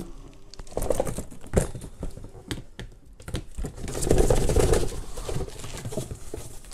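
Rustling, scraping and light knocks of a cardboard box and plastic wrap being handled and lifted away, louder from about four seconds in.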